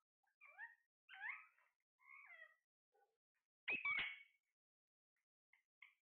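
Parrot calls: several short chirps and whistles that slide up and down in pitch over the first three seconds, then one loud harsh squawk about four seconds in, and a few faint chirps near the end.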